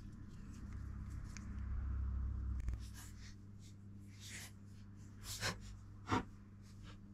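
Double-sided tape handled and cut with small side cutters. A soft rasp of tape peeling off the roll for a couple of seconds, then a few light clicks and snips, the sharpest about six seconds in.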